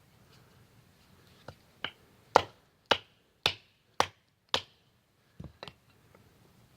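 A run of sharp knocks: two light ones, then five hard strikes about two a second, and two quick lighter ones near the end.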